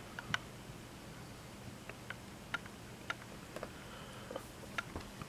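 Quiet room tone with a low steady hum and about a dozen faint, irregular clicks and ticks.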